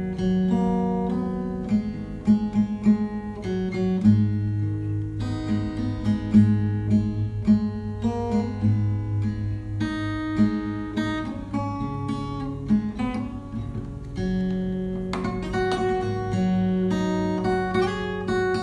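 Background music on acoustic guitar: a run of plucked notes over low sustained bass notes.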